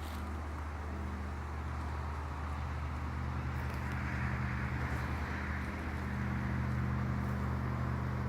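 Motor vehicle engine running with a steady low hum, and a hiss of road noise that swells for a few seconds in the middle.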